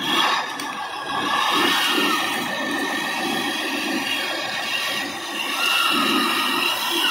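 Radio-controlled model dump truck's electric drive motor and gearbox whining as it drives on dirt, the pitch rising and falling with speed.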